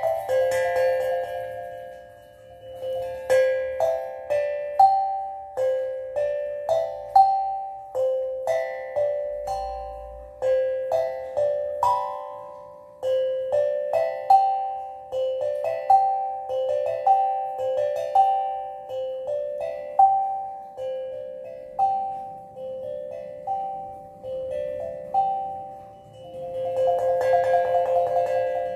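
Steel tongue drum played slowly, single struck notes about one or two a second, each ringing on and fading into the next in a gentle, unhurried melody.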